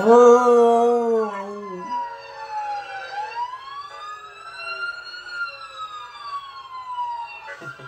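Police siren wailing in slow rising and falling sweeps, played through a laptop speaker. Over the first two seconds a husky howls loudly along with it, a single held note that drops slightly at the end.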